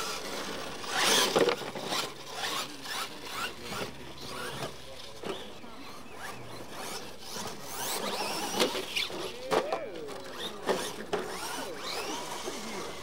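Losi LMT electric RC monster trucks racing on dirt: the motors whine up and down with the throttle while the tyres scrabble and spray dirt, with short knocks as the trucks hit the ground. The loudest burst comes about a second in, at the launch.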